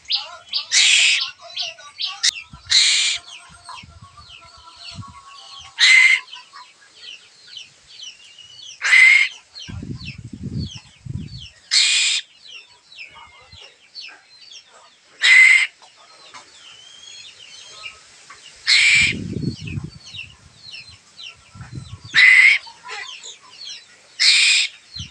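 Asian koel chick giving loud, harsh begging calls, one about every three seconds, nine in all, crying to be fed. Other birds chirp faintly underneath.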